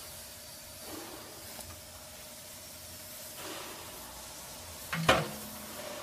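Shredded paper rustling as it is pushed into a vertical baler's feed chamber, then the baler's metal front door is shut with a sharp bang about five seconds in, over a steady hiss.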